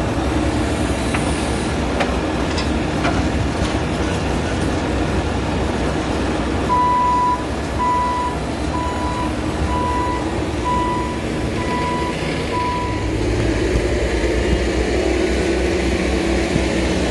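Bobcat skid-steer loader's diesel engine running steadily as it tips sand from its raised bucket into HESCO barrier cells. In the middle a reversing alarm beeps seven times, about once a second.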